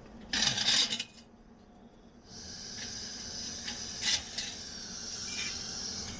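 Metal cooking utensils clatter briefly, then about two seconds in a steady hiss starts up, with a few light clicks over it.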